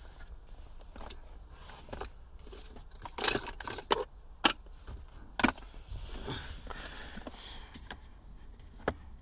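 Plastic centre-console trim pieces being handled and pushed together during a test fit, with a light rustle and five or six sharp plastic clicks and knocks, a cluster in the middle and one more near the end.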